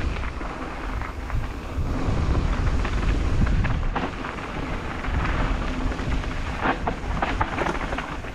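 Wind buffeting the microphone during a fast downhill mountain-bike descent, with the bike clattering over rough trail; the sharp rattles come thicker in the second half.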